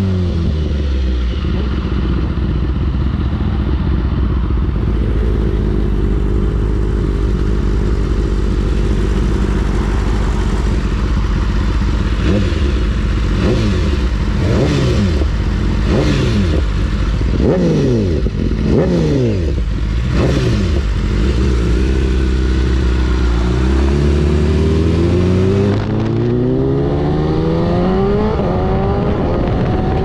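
BMW superbike inline-four engine through an Akrapovic exhaust, under way. The revs fall at the start, then it runs low and steady. About halfway through the revs rise and drop several times in quick succession, and near the end they climb steadily as it accelerates.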